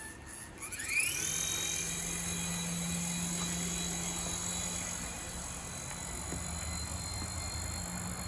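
Small electric motors of a DEERC DE51 toy RC helicopter spinning up about a second in with a quick rising whine, then holding a steady high-pitched whine over a low rotor hum as it takes off and flies.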